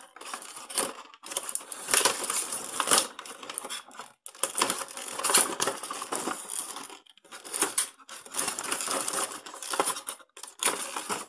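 Clear plastic wrapping crinkling and rustling in the hands in irregular bursts, as a packaged toy part is unwrapped.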